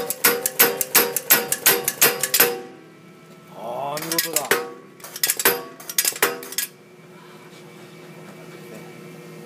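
Pneumatic air hammer striking a steel die block in rapid, even blows, about four to five a second, stopping about two and a half seconds in. After a short pause a few more separate strikes come, over a steady machine hum.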